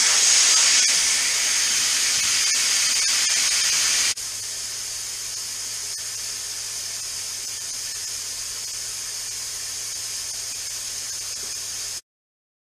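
Compressed air hissing steadily out of a Rolair air compressor. The hiss drops to a quieter, steady level about four seconds in and cuts off abruptly near the end.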